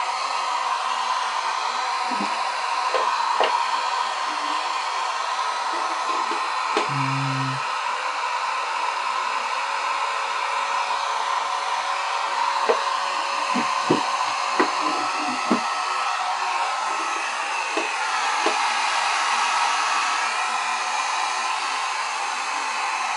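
Handheld hair dryer blowing steadily, drying freshly applied paint. A few light knocks sound over it, most about two-thirds of the way through.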